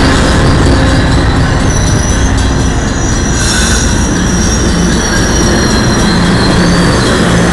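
Amtrak passenger cars rolling past close by as the train pulls into the station: a loud, steady rumble of wheels on rail, with thin, high-pitched squeals from the wheels as it slows.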